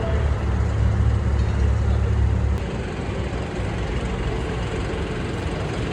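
Low engine rumble of a vehicle running in the arena, cutting off about two and a half seconds in, over the steady noise of the crowd.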